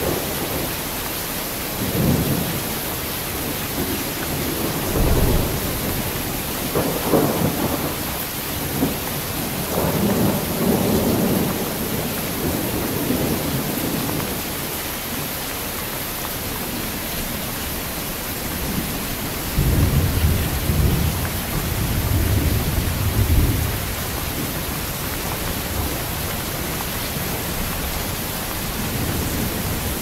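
Steady heavy rain with thunder rumbling again and again. The longest and deepest roll of thunder comes about two-thirds of the way through.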